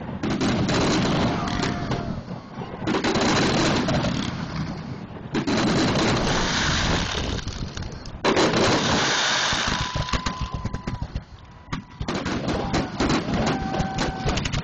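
Fireworks display: several loud hissing bursts lasting two or three seconds each, then, about twelve seconds in, a rapid run of sharp crackling bangs as shells burst overhead.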